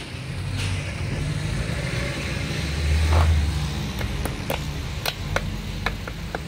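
A low engine rumble of a motor vehicle running, swelling louder about halfway through, with a quick run of sharp metal clicks in the last couple of seconds as the gearbox housing, gear and screwdriver are handled.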